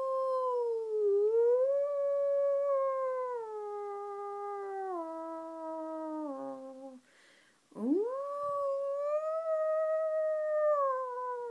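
A person howling like a wolf: two long howls. Each rises at the start, holds, then slides down in pitch. The first ends in a few downward steps about seven seconds in, and the second starts about a second later.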